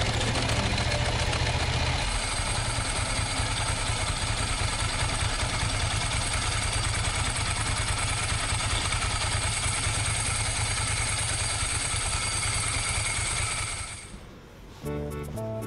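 Ducati Monster 900's air-cooled V-twin engine running steadily with a low pulsing beat. The sound dies away about 14 seconds in, and music starts just before the end.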